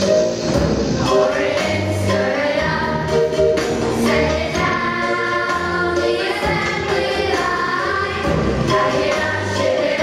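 Children's choir singing together over an instrumental accompaniment with a low bass line and a light beat.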